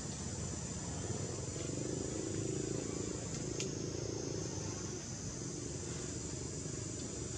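Steady high-pitched insect chorus over a low background rumble, with a low hum that rises and fades in the middle.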